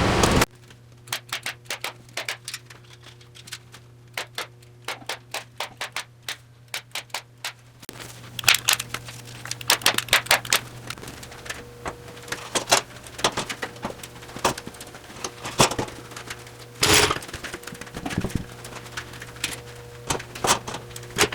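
Many sharp clicks and knocks from hand work in the workshop, quick and uneven at first, then fewer but louder, over a steady low hum.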